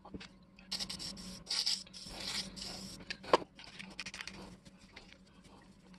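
A hand tool scraping and scratching at the rusty working parts of a 1924 Walker Badger jack, cleaning out rust and grime. There are rasping strokes for about two seconds from about a second in, then one sharp click a little past three seconds, and light ticks and scratches after.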